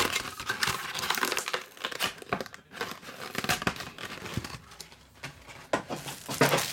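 Plastic card packaging crinkling and rustling as it is handled and torn, busiest in the first couple of seconds and again near the end.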